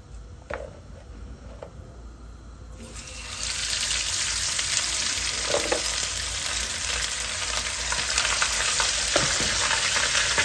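Food frying in a pan of hot oil: the sizzling starts suddenly about three seconds in, after a few light knocks, and then continues steadily.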